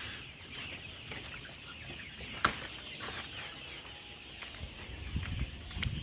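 A flock of young layer hens clucking and calling together, with a single sharp click about two and a half seconds in.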